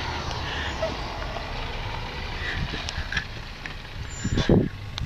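A delivery van's engine running, a steady low rumble, with a louder thump about four and a half seconds in.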